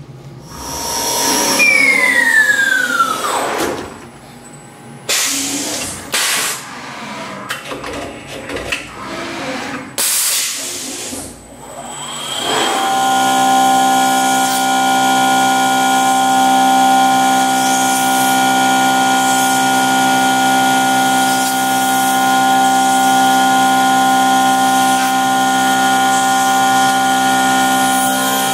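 Skyfire SVM1 CNC vertical mill running: first several short hissing blasts and a whine falling in pitch about 2 s in. Then, from about 13 s in, a face mill cutting an aluminium block under flood coolant with a steady, loud whine of several tones.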